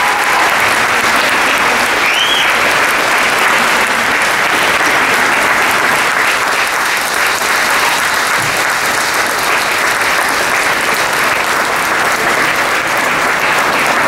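Large audience applauding, a dense, steady clapping that holds at one level throughout.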